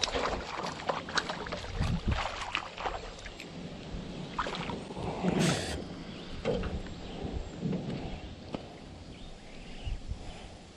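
Clicks and knocks of a fish being landed in an aluminum canoe: the spinning rod and reel being worked and bumping the hull, then a brief splash about five and a half seconds in as the bass is lifted from the water. Dull thumps follow while the fish is handled and unhooked.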